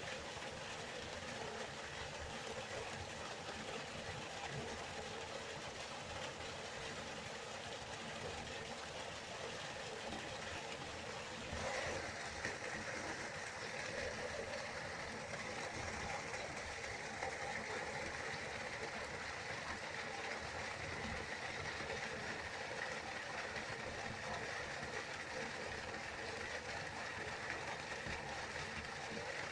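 River water rushing steadily, a continuous flowing noise with a slight change in tone about twelve seconds in.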